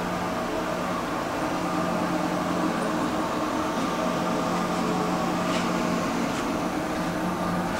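Steady hum of a car ferry's machinery and ventilation heard inside a passenger corridor, a constant drone with several held tones.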